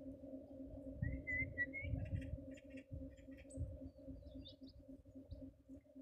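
Small wild birds calling close by: a short warbling whistle about a second in, then a quick run of high chirps and a few scattered higher notes.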